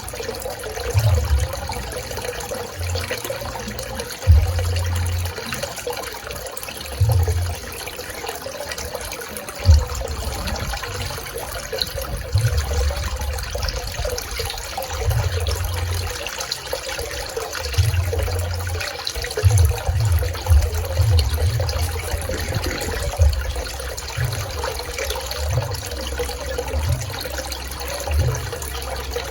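Swimming pool water lapping and trickling: a steady watery wash, with uneven low rumbles coming and going.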